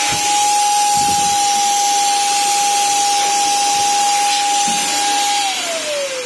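Electric paint spray gun's 22,000 rpm turbine motor running, blowing air with a steady high whine and hiss. About five and a half seconds in it cuts out and the whine falls in pitch as the motor winds down.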